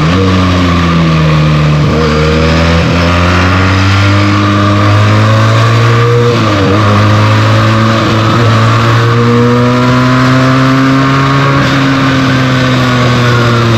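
Benelli TNT 300's parallel-twin engine through its stock exhaust, under way on the road with wind rush. Its pitch climbs and settles gently, with several brief sharp dips typical of gear changes.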